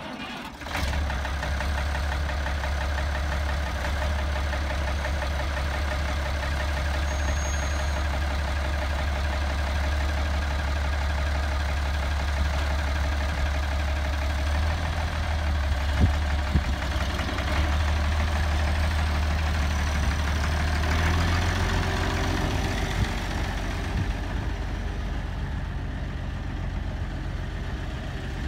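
International 966 Farmall tractor engine running steadily at idle. It changes pitch and load near the end as the tractor moves off.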